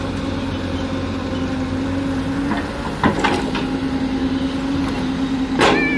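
Hyundai crawler excavator's diesel engine running steadily under load while it digs earth and loads a dump truck. A sharp knock comes about three seconds in, and a louder clank comes near the end.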